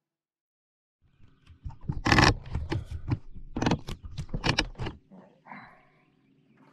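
A hand handling the camera: a run of loud knocks, bumps and rubbing against the microphone, starting about a second in and stopping about a second before the end, followed by a faint steady hum.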